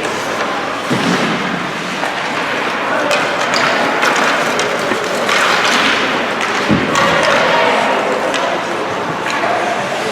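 Ice hockey play on the rink: sticks clacking and skates scraping the ice, with scattered sharp knocks and one heavy thump about seven seconds in, over background crowd voices.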